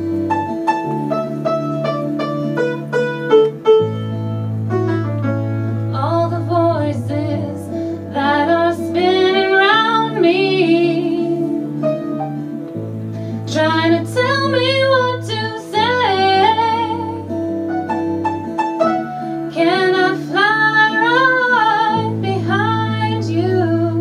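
Live band music: a woman sings a slow song over guitars and piano. The first six seconds or so are instrumental, then the sung phrases begin.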